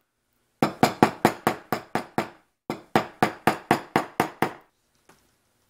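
A mallet striking the handle of a bevel-edge chisel, chopping a notch into a hardwood block: two runs of quick, sharp knocks, about five a second, with a short break between them.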